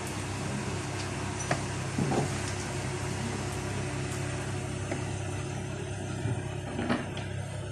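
Diesel engine of a boat travel lift running steadily at idle, with a few short knocks and clatters about one and a half, two and seven seconds in.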